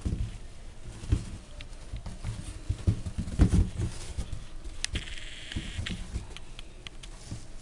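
French bulldog puppies playing and wrestling on an artificial-grass mat: irregular soft thumps, bumps and scrabbling paws, loudest a little past three seconds in, with a short higher-pitched sound about five seconds in.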